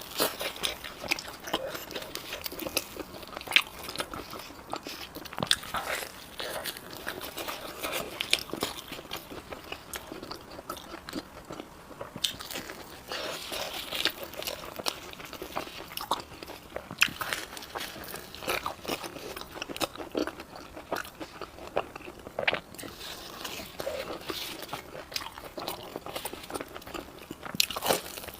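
Close-miked eating: a person biting into and chewing Chinese food, with irregular crunches and sharp mouth clicks.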